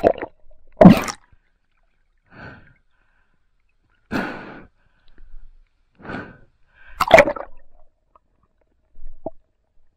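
Water splashing and sloshing in short separate bursts a second or two apart, the loudest about a second in and again about seven seconds in, with a small click near the end.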